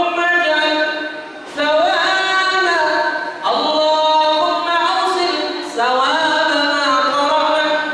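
A man chanting an Arabic supplication prayer (doa) in a melodic sung style. He holds long, wavering notes in phrases, with short breaks for breath about one and a half, three and a half, and six seconds in.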